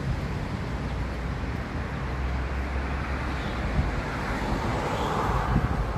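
Steady road traffic noise: the rumble of passing vehicles, swelling as one passes more loudly about five seconds in.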